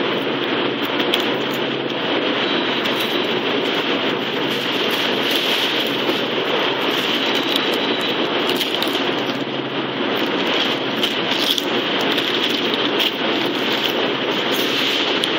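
Steady rushing air noise with a low hum underneath, typical of the refrigeration fans running in a walk-in florist cooler, with a few faint ticks from flower stems being handled.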